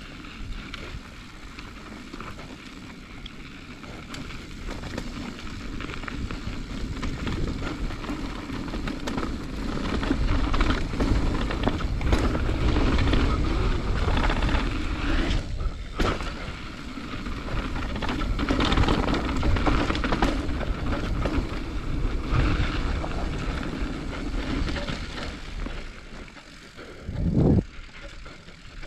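Transition Patrol mountain bike riding fast down a dirt singletrack: tyres rolling over dirt and rock with bike rattle and wind on the microphone, growing louder about a third of the way in. A few sharp knocks from rough ground come in the middle, and a short heavy thump, like a landing, comes near the end.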